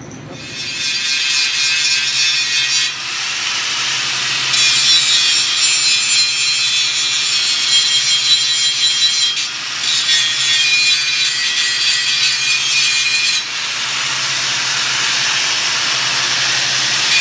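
Angle grinder with a flap disc grinding leftover weld down flush on an intercooler tank: a loud, steady grinding whine worked in passes, easing briefly about three seconds in, near ten seconds and about thirteen and a half seconds in.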